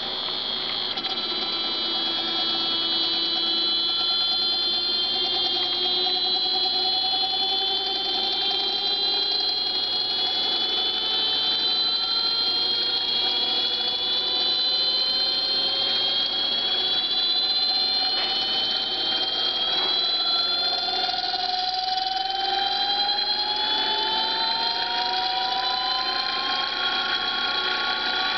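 Small brushless motor driven by an Open-BLDC breadboard controller, whining as it spins up. It comes on suddenly, then several tones climb slowly and steadily in pitch as its speed rises.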